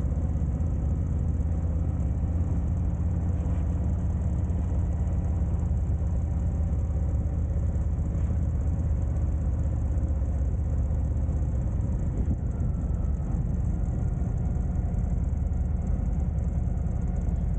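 Motorcycle engine running steadily as the bike is ridden slowly along, a constant low drone with no change in revs.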